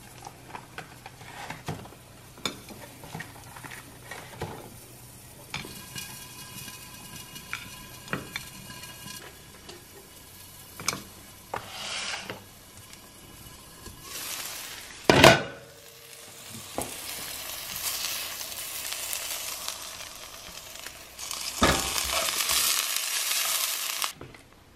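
Kitchen work at a stove: utensils clicking and scraping on a ceramic plate and frying pan, with one loud knock about fifteen seconds in. Food sizzles in the frying pan, plainest in the last few seconds.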